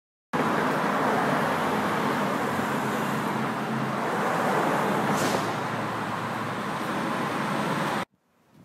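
Loud, steady city street traffic noise, with a brief high hiss about five seconds in; it cuts off abruptly near the end.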